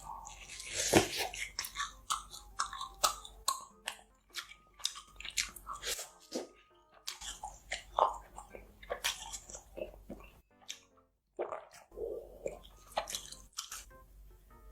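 Close-miked biting and chewing of crunchy food: a loud bite about a second in, then a long run of crisp crunches, with a short break shortly before the end.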